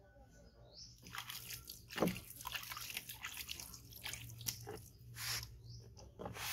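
Water splashing and dripping as a hand scoops from a plastic basin and wets a baby monkey, water running off onto a plastic stool: a string of short wet splashes and drips, the loudest about two seconds in.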